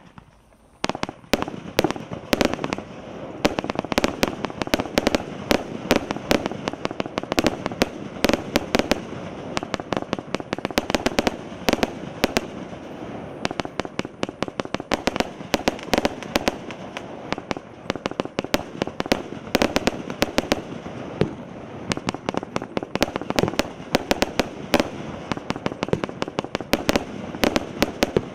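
Consumer fireworks firing a long, rapid string of sharp shots and bursts, many per second, starting about a second in after a brief lull.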